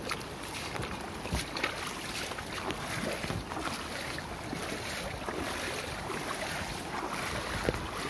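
Muddy rainwater runoff rushing fast down a shallow channel beside rice paddies: a steady rushing with many small splashes and gurgles.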